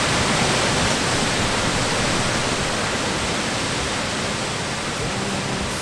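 Waterfall rushing down a rocky gully: a steady, even roar of falling water. Music comes in faintly near the end.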